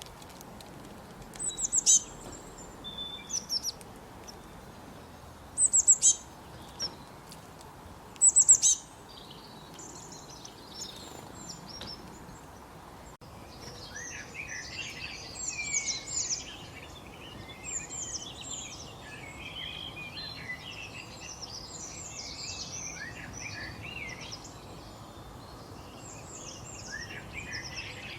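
Eurasian bullfinch calls. First come a few loud, sharp, falling calls in short clusters. After a cut about halfway in, there is a busier stretch of many overlapping chirps.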